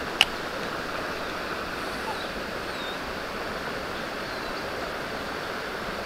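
Steady rush of a mountain stream's flowing water, with one short sharp click about a quarter of a second in.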